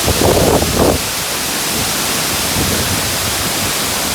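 Waterfall pouring: a loud, steady rush of falling water. A brief louder sound rises over it in the first second.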